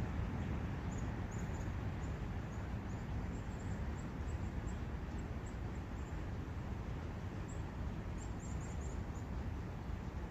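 Forest ambience: a steady rushing of wind and a brook, with short, high bird chirps scattered through it, a quick run of them about eight seconds in.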